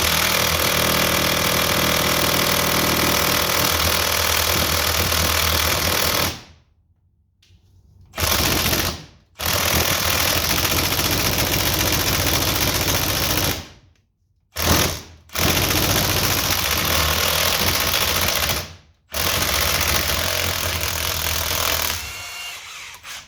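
Impact wrench hammering on stubborn bolts of a Ford 7610 tractor in about six runs of varying length, the first about six seconds, with short pauses between. The mechanic suspects the bolts were set with Loctite.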